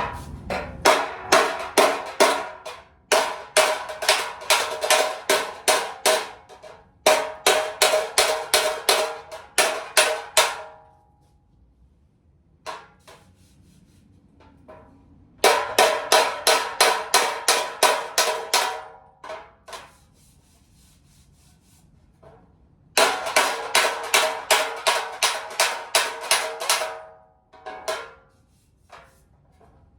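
Hammer striking a steel bumper in quick runs of about four blows a second, each blow ringing out, with pauses of a few seconds between runs: knocking out a dent in the bumper.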